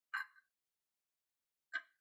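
Metal spoon spreading batter in a nonstick taiyaki mold: two brief scrapes about a second and a half apart.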